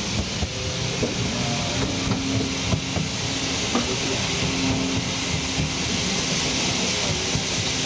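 Narrow-gauge steam train heard from aboard while running: a steady hiss with scattered clicks and knocks from the wheels and carriage, and a low tone that comes and goes.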